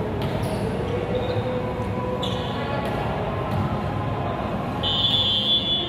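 Volleyball game sounds in a large gym: a few sharp ball hits and thuds and high squeaks, the loudest near the end, over steady hall noise.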